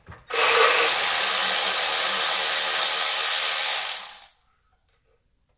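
Cordless electric ratchet running steadily for about four seconds, spinning a spark plug out of the cylinder head through an extension and spark plug socket. It winds down and stops a little after four seconds in.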